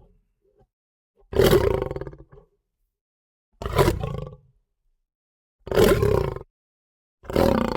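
Lion roar sound effects: four short, deep roars about two seconds apart. Each starts loud and fades within about a second, with silence between them. The last roar begins near the end.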